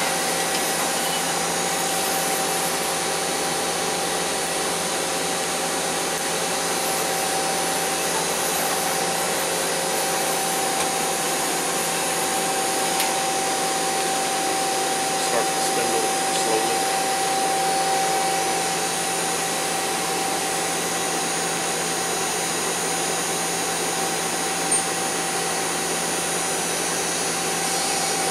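2005 Mazak Nexus QTN250MSY CNC lathe running under power: a steady whirring hum with a steady whine, the whine strongest midway. A few light clicks come in the second half.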